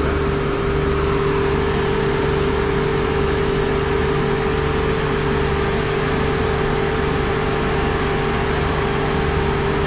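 Marina pump-out station's vacuum pump running steadily with a constant hum, sucking out a sailboat's holding tank through the suction hose and deck fitting.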